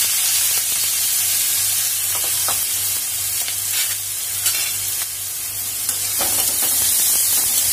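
Chopped onion and green chilli sizzling steadily in hot oil with cumin seeds in a kadhai, the onions frying as soon as they hit the oil. A few light scrapes of the spatula against the pan, the last near the end as it is stirred.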